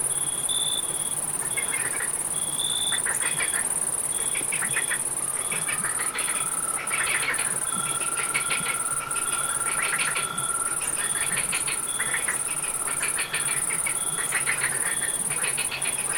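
Night chorus of crickets and frogs: a continuous high insect trill, a cricket chirping about twice a second, and frogs calling in quick rattling pulse trains. A steady lower trill comes in about five seconds in and stops near fifteen seconds.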